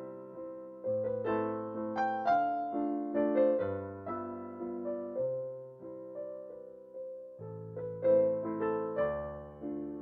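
Background piano music: a melody over low bass notes, each note fading after it is struck.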